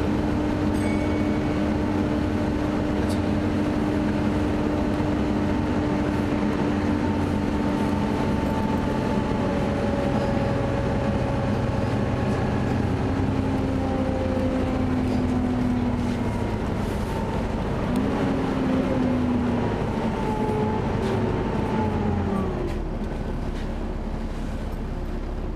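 Volvo B7TL double-decker bus heard from inside while moving: a steady loud whine from its cooling fan over the engine running. Around twenty seconds in the pitches fall and the sound drops a little as the bus slows.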